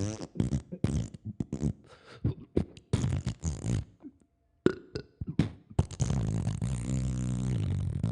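A string of short, wobbling fart-like blurts, then one long buzzing fart-like noise starting about six seconds in.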